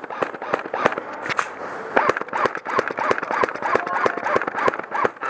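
Airsoft guns firing in irregular rapid cracks and volleys, with BBs smacking the wooden walls, echoing in a large warehouse. Distant shouting voices join after about two seconds.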